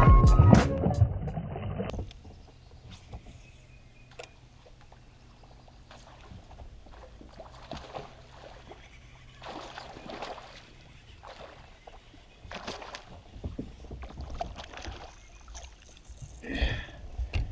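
Background music fading out, then faint water splashes and scattered handling noises from a fishing boat, growing busier near the end.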